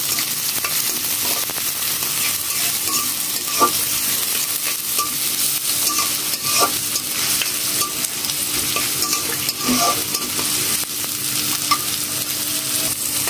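Sliced onions sizzling as they fry in hot oil in a wok, stirred by a metal spatula with a few short scrapes against the pan. The onions are at the early frying stage, not yet browned.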